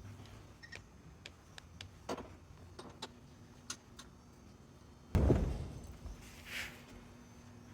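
Scattered light clicks and clinks of hand tools on metal as drain plugs and hoses are refitted on a boat's inboard engine, then a single heavy thump about five seconds in.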